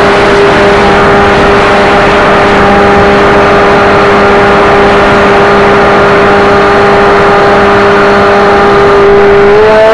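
Motor drone of a radio-controlled Partenavia model plane, heard through the onboard camera in flight over a hiss of rushing air. The drone holds a steady pitch, then steps up just before the end.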